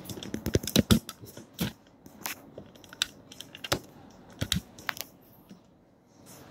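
Handling noise of a camera being repositioned: a quick cluster of sharp clicks and knocks about half a second to a second in, then scattered single clicks over the next few seconds.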